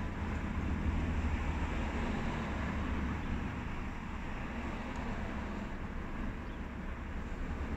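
Steady low rumble of an idling vehicle engine, heard from inside the cab.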